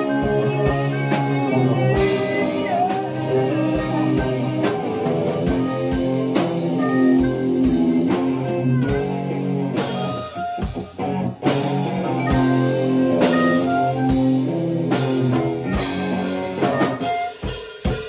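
Live blues-rock band jamming: electric guitar and drum kit with a harmonica played into a hand-held vocal microphone, its notes bending in pitch. The band briefly drops out about ten seconds in before the beat picks up again.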